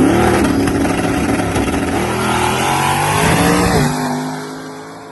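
Combustion car engine at full throttle, pitch climbing and dropping back several times as it shifts up through the gears, then fading away about four seconds in as the car pulls off.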